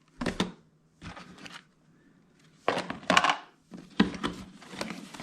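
Parts and packaging being rummaged out of a storage box: about four short bouts of clunks and rustling.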